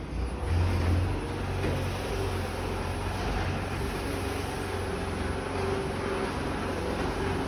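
Genie Powermax 1500 garage door opener running steadily with a low motor hum and a steady whine, closing the door.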